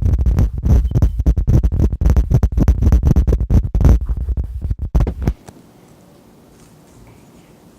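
Rapid rubbing, scraping and knocking of hands working Play-Doh against the table close to the microphone, a dense run of thumps that stops abruptly about five seconds in, leaving only quiet room tone.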